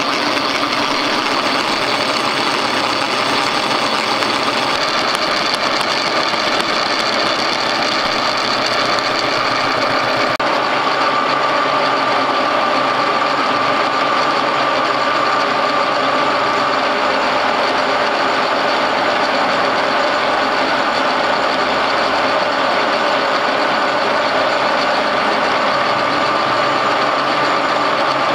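Vintage Kunming milling machine running, its face-milling cutter cutting across a metal block as the table is wound through by hand: a steady mechanical din with a held high whine.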